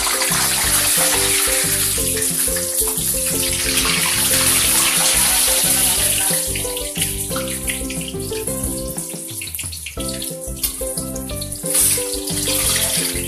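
Samosas deep-frying in hot oil in a kadai: a steady, dense sizzle. Background music plays with it.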